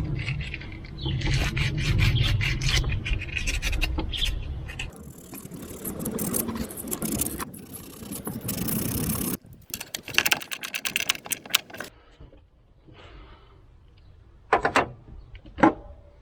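Wet-and-dry abrasive paper rubbing and scraping corrosion off a car's metal earth connection, in quick repeated strokes. A few sharp metallic clicks follow near the end.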